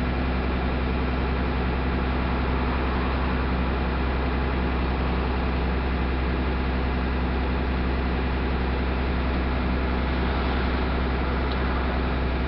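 Diesel engine of a Mercedes-Benz OF 1318 bus running steadily with a low, even hum and no change in engine speed.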